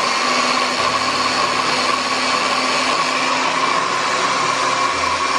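Electric hand blender's motor running steadily on its chopper bowl attachment, grinding bread into crumbs. It switches on suddenly and holds an even whirring noise with a steady high whine on top.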